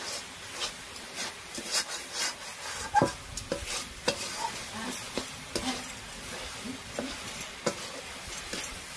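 A metal spatula stirs and scrapes a sticky coconut, peanut and sugar filling around a metal kadhai, with irregular scrapes and clicks against the pan. This is the sweet stuffing for suji kakara pitha being cooked down.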